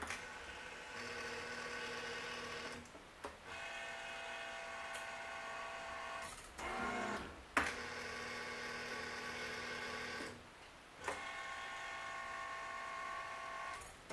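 Claw machine's small electric gantry motors whining as the claw is lowered, raised and moved in a test grab, running in four stretches of two to three seconds with short pauses and sharp clicks between them, the loudest click about seven and a half seconds in.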